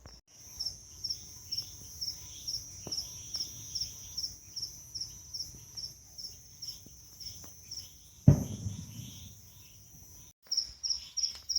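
Crickets chirping in a steady high trill that pulses about twice a second. About eight seconds in there is one sudden loud thump.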